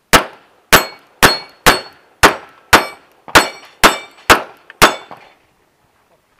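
Springfield MC Operator 1911 pistol firing ten shots in quick succession, about two a second, each shot loud and sharp with a short ringing tail.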